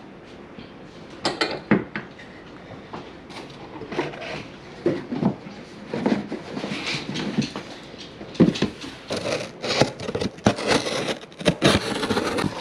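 Handling noises: rigid cardboard gift boxes and the bottles being moved and set down on a wooden table. Irregular knocks, taps and sliding scrapes, with some rustling of packaging.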